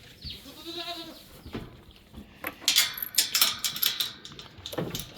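A goat bleats once, a short call rising then falling in pitch. About two and a half seconds in comes a loud run of rapid clattering knocks lasting about two seconds.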